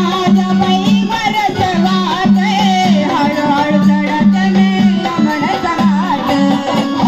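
Marathi gondhal folk-devotional music: an instrumental passage with a wavering, ornamented melody over repeated low notes and percussion.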